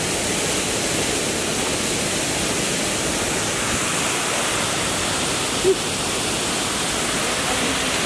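Waterfall pouring steadily, a dense even rush of falling water, with one brief short sound over it about two-thirds of the way in.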